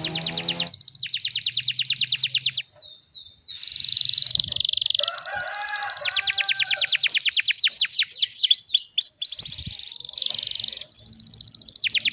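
Domestic canary singing long, tightly packed trills of rapidly repeated high notes, with a short break about three seconds in and rolling, downward-sweeping notes near the end.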